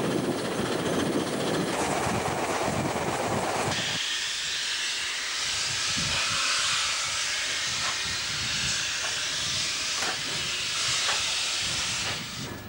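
Steam-hauled train heard from an open carriage window: a rumbling rush of wheels and air at first, then, after a cut about four seconds in, a steady hiss with a few faint clicks.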